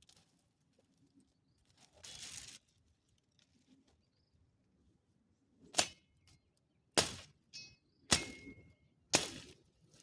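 Four sharp strikes about a second apart, preceded by a brief rustle.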